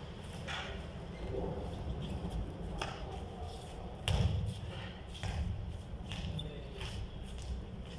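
Basketball thumping on a concrete court during play, with scattered knocks, the loudest about four seconds in, over a steady low rumble.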